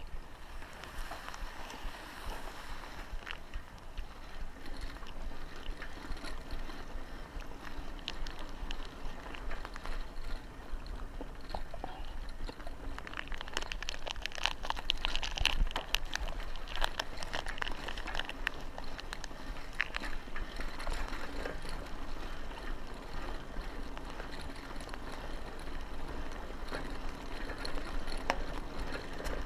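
Buffalo Charger bicycle rolling along a dirt track: steady tyre noise on the dirt with a low rumble, and a stretch of crackling and clicking about halfway through.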